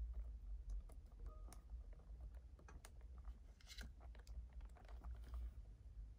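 Faint scattered clicks and rustling from plastic wiring connectors and cables being handled and fitted together inside an electric scooter's deck, with a brief scratchy rustle a little past halfway. A steady low hum sits underneath.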